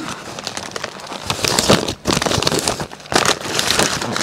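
Gift wrapping being unwrapped by hand: paper crumpling and tearing in irregular crackling bursts, loudest in the middle and near the end.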